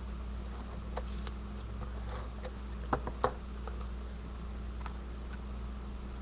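Light taps and clicks of paper and card stock being handled and pressed down on a work surface, with two sharper taps about three seconds in, over a steady low hum.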